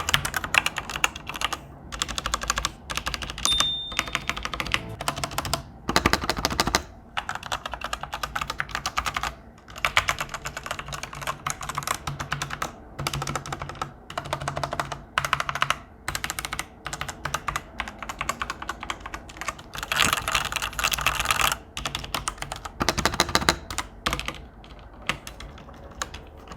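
Typing on a Tecware Spectre Pro mechanical keyboard fitted with Otemu switches: fast runs of key clacks broken by short pauses, the spacebar included, with no rattle. The owner takes the smooth sound for lubed switches and stabilizers.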